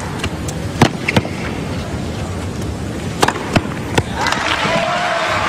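Tennis rally: several sharp racket-on-ball hits and ball bounces, spaced a fraction of a second to a couple of seconds apart. The point ends in crowd applause starting about four seconds in.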